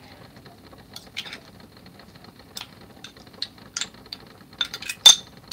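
Scattered small clicks and taps from hands handling things at a table, irregularly spaced, the sharpest one about five seconds in.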